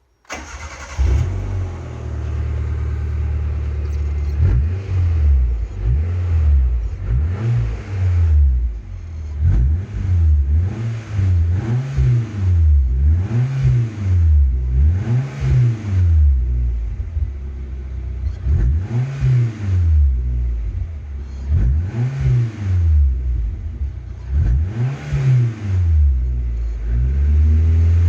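Suzuki Jimny Sierra's four-cylinder engine breathing through a motorcycle silencer. It starts up about a second in and idles briefly, then is revved again and again in quick rising and falling blips, and settles back to idle near the end.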